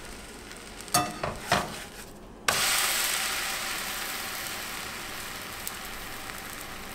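Two sharp clinks, then about two and a half seconds in a sudden loud sizzle in a hot frying pan that slowly dies down.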